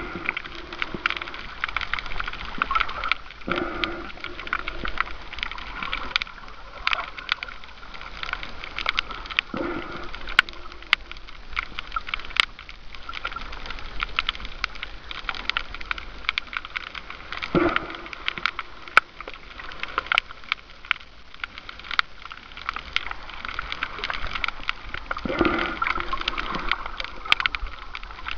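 Underwater sound of a shallow coral reef, picked up by a waterproof camera: a dense, steady crackle of short clicks, with a louder gurgling swell of moving water every few seconds.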